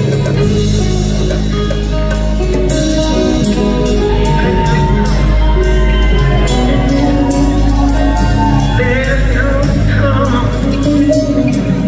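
Rock band playing live in a large hall: electric and acoustic guitars, drum kit and keyboards, with a sung lead vocal over them.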